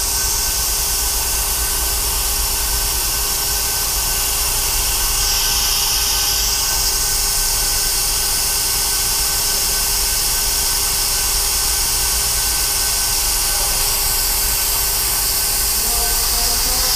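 Vacuum brake bleeder running with a steady hiss, sucking old brake fluid out through the front brake caliper's bleed valve on a Harley-Davidson Sportster.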